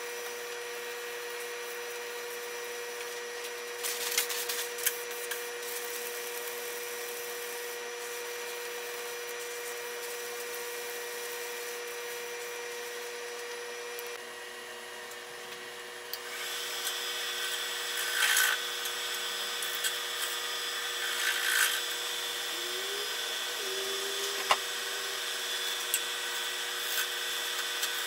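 Wood lathe running with a steady motor hum while a paper towel rubs finish onto the spinning cherry wood, with a few brief louder rubbing scrapes. About halfway through the hum changes to a different steady running sound with a higher whine, and a turning chisel scrapes against the spinning workpiece in short bursts.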